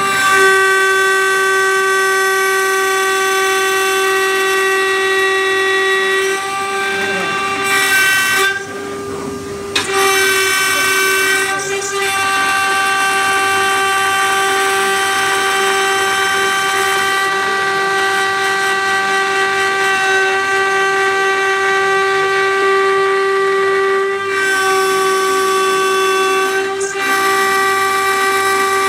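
High-speed router spindle of a CNC cutting plotter milling an acrylic sheet: a steady high-pitched whine with a ladder of overtones. It thins and quietens for a moment several times, most clearly about a third of the way in.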